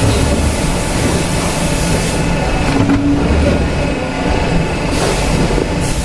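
Machinery in a shoe factory running steadily, a dense rumbling clatter with no clear rhythm.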